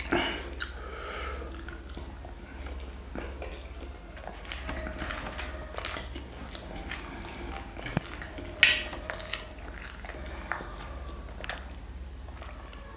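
Close-miked eating: chewing and biting a mouthful of spicy black bean noodles, with many short wet clicks and a louder burst about eight and a half seconds in. A fork clicks against a steel plate, all over a steady low hum.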